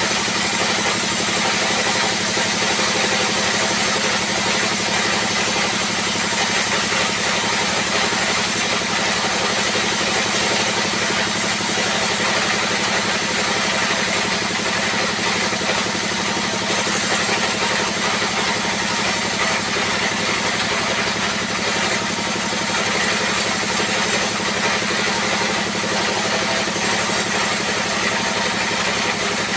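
A diesel-driven circular saw bench runs steadily while wood slabs are fed through it, the cutting noise rising several times for a couple of seconds as each board passes the blade.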